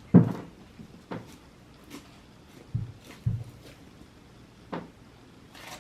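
Homemade slime being squished and handled in the hands: a handful of short, soft squelches and knocks, about one a second.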